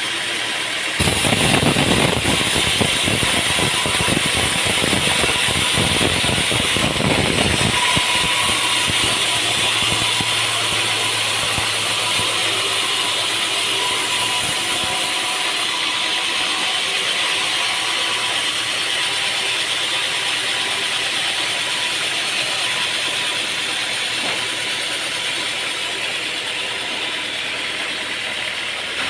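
Sawmill machinery running. A dense rattling clatter starts about a second in, then eases after several seconds into a steady mechanical running noise with a faint whine.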